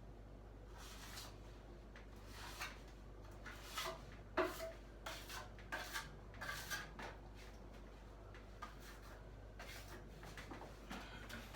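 Filling knife scraping and clicking as joint filler is worked, in short irregular strokes that come thick for the first several seconds and then thin out, over a faint steady hum.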